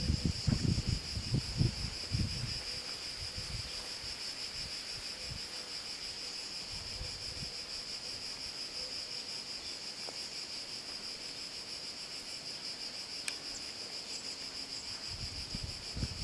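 Steady high buzzing of cicadas with a fine pulsing texture. Wind buffets the microphone in the first couple of seconds and again near the end.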